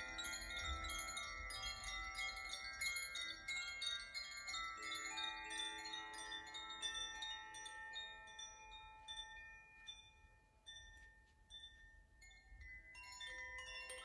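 Koshi and Zaphir wind chimes gently shaken by hand, their clappers striking tuned rods inside, giving dense overlapping tinkling with long ringing tones. The tinkling thins out and dies away to faint fading rings about two-thirds of the way through, then a fresh round of tinkling starts near the end.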